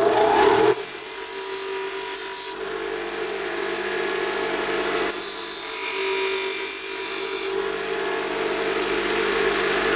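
Bench grinder motor finishing its run-up to speed, then running steadily while an HSS hacksaw blade is pressed against the grinding wheel twice, each time for about two seconds, giving a harsh high hiss over the motor hum.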